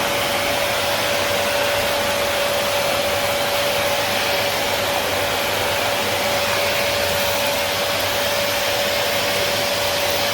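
Samsung SC4130 1400-watt canister vacuum cleaner running steadily, its motor giving a steady whine over the rush of air.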